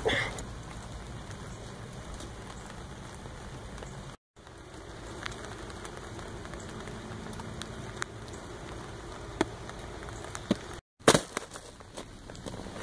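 Steady outdoor background hiss with a few scattered clicks, cut off completely twice for a moment. Louder knocks and rustles come near the end.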